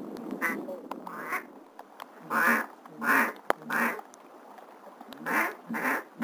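Loud duck quacks: a run of three about two seconds in, then two more near the end.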